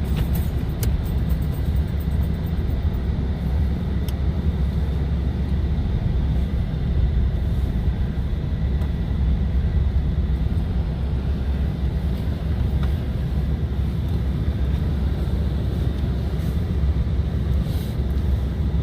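Toyota Tacoma pickup driving slowly out of a snow-covered driveway: a steady low rumble of engine and tyres, with a few light clicks in the first few seconds.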